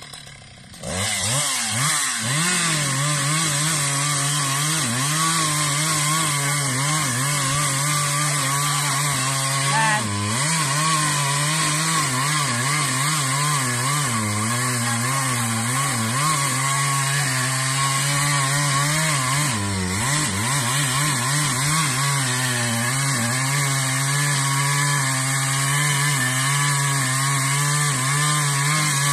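Husqvarna 372 XP two-stroke chainsaw revving up about a second in and running at full throttle cutting through a tree trunk, its pitch wavering and dipping briefly twice under load.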